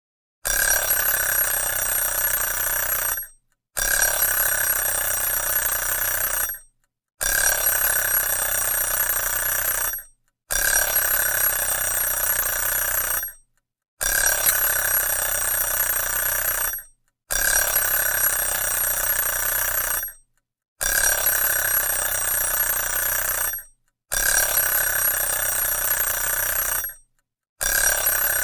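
Alarm clock bell ringing loudly in repeated bursts of about three seconds, each followed by a half-second break; it starts about half a second in.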